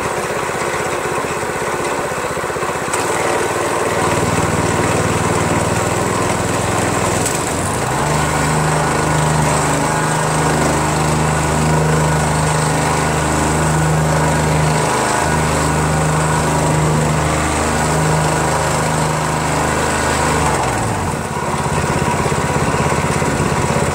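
Predator 212cc single-cylinder engine on a plate compactor, run in on its break-in, taken from idle to high throttle. The speed climbs in two steps over the first several seconds and holds steady, then drops back toward idle a few seconds before the end.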